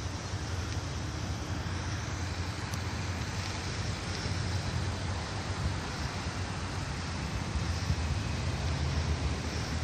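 Steady low rumble under an even hiss from distant heavy vehicle noise, slowly growing louder.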